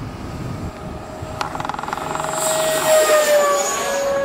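Radio-controlled electric ducted-fan model jet passing close by: a high fan whine that builds, is loudest about three seconds in, then drops in pitch as the jet goes past.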